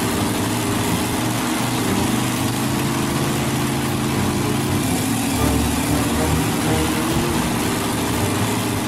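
Engine sound effect for a small wheeled loader: a motor running steadily, with a low, even drone.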